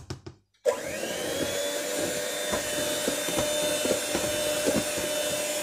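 A few light taps, then an electric hand mixer switched on about half a second in: its motor spins up with a rising whine and runs steadily as the beaters whisk runny cake batter in a plastic bowl, with occasional knocks of the beaters against the bowl.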